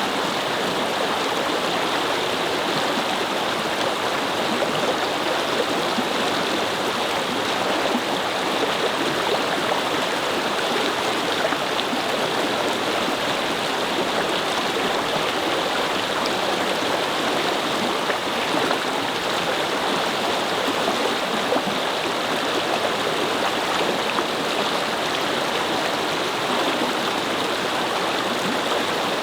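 A brook flowing and babbling steadily over its bed, an even rush of running water.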